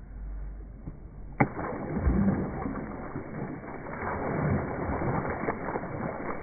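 Water pouring from a plastic bucket and splashing onto wet sand and mud, a steady muffled rush of splashing that starts about a second and a half in with a sharp click.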